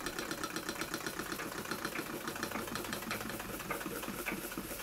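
Wilson S2 model steam engine running in a rapid, even beat of small exhaust puffs from its piston. The small two-wick burner is not giving it enough heat, so it is running short of steam pressure.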